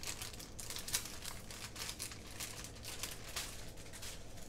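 Paper sticker sheets crinkling and rustling as they are handled, in a quick run of crackles.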